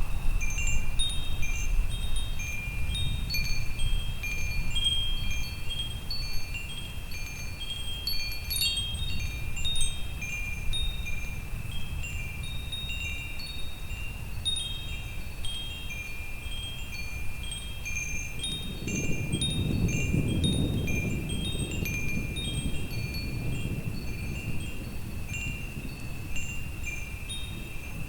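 Wind chimes tinkling continually, many overlapping high metallic tones, over a low rumble of thunder that swells about two-thirds of the way through and then fades back.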